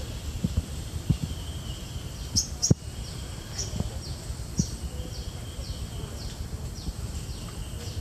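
A bird giving a series of short, high, downward-slurred calls, about two a second, from about four seconds in, over a steady high insect-like drone. A few low knocks sound in the first three seconds.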